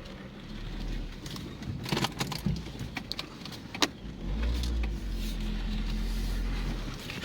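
Old riding lawnmower's starter cranking the engine over without it catching: a short burst near the start, then a longer crank of about three seconds from about four seconds in. A few sharp clicks come in between.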